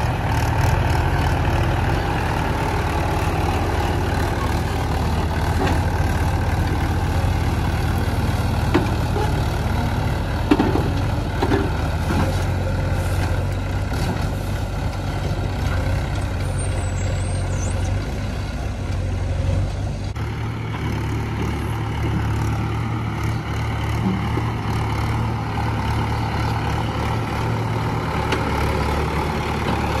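Mahindra 575 DI tractor's four-cylinder diesel engine running steadily under load as it pulls a trailer heaped with soil. The engine sound shifts abruptly about twenty seconds in.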